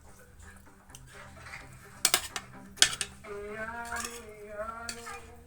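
Cutlery clinking against a plate, two sharp clicks about two and three seconds in. A wordless voice follows, a drawn-out sound that wavers in pitch.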